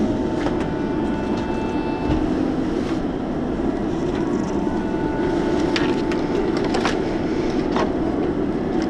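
Steady hum of a Boeing 767's cabin while parked for boarding, with a few light clicks and knocks from things being handled in the overhead bin.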